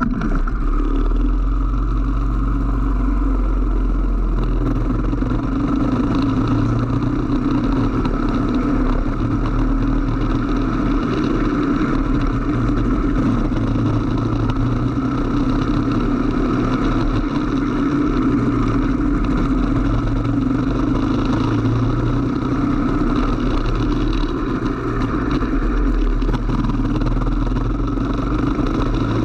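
Kart engine running on track, heard from on board the kart, its pitch rising and falling with the throttle through the corners.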